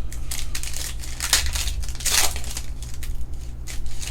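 Foil trading-card pack wrapper being torn open and crumpled, a run of short rips and crinkles that are strongest about one and two seconds in.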